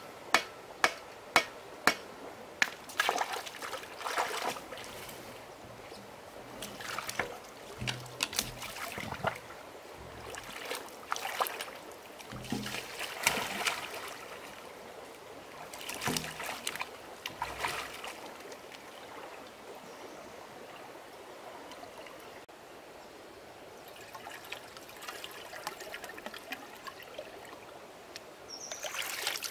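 Shallow water splashing and trickling in irregular bursts, with a quieter stretch late on. It opens with a run of sharp knocks, about two a second, that stop about two and a half seconds in.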